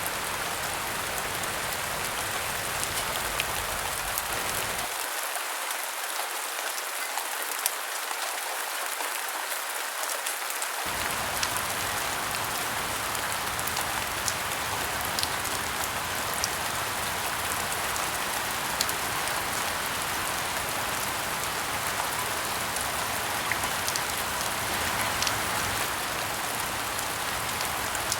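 Steady rain falling, with scattered sharp drop ticks over an even hiss. Its low rumble cuts out for about six seconds a few seconds in, then returns.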